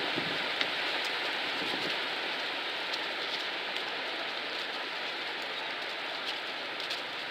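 Dry zelkova leaves rustling and pattering down in a strong wind: a steady rain-like hiss with scattered light ticks.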